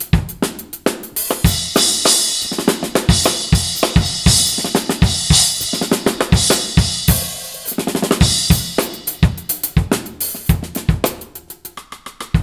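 Drum kit played in a groove, kick and snare under cymbal hits, with a Sabian HHX Evolution 12-inch splash struck for short, bright crashes over the beat. About a second before the end the playing drops to lighter, quicker strokes.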